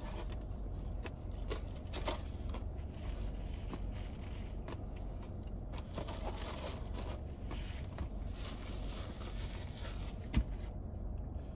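Quiet steady low hum with faint scattered crackles and clicks: someone chewing fried chicken tenders and handling the food packaging.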